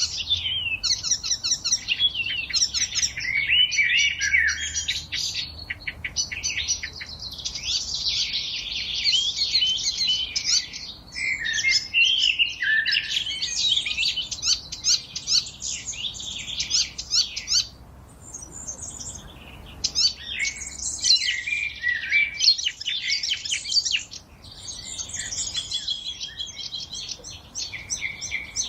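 Several songbirds singing at once, a dense chorus of overlapping quick chirps, trills and warbles, briefly thinning about two-thirds of the way through.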